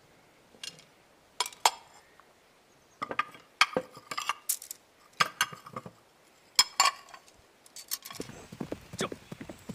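Dishes and cups clinking and knocking together in small clusters of light, sharp clinks as a table is cleared. Near the end, quick horse hoofbeats start up.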